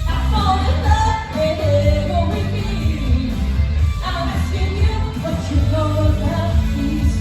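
Pop song: a lead singer over a steady pulsing bass line.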